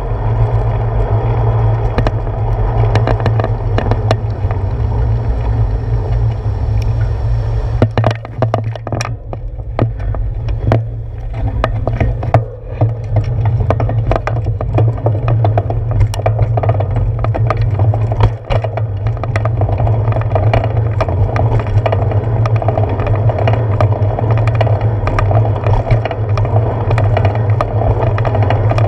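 Steady rumble of wind and road vibration picked up by a handlebar-mounted GoPro Hero 4 on a moving bicycle. About eight seconds in it eases for a few seconds as the bike slows, with sharp knocks and rattles from bumps, then the steady rumble returns.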